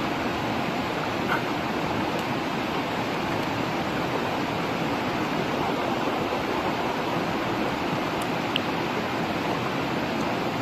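Steady rush of running water, with a couple of faint brief clicks.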